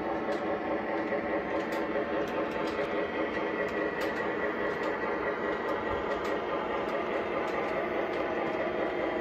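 Lionel RS-11 O-gauge model diesel locomotive running on three-rail tubular track, pulling freight cars: a steady motor and wheel rumble with faint, irregular clicks.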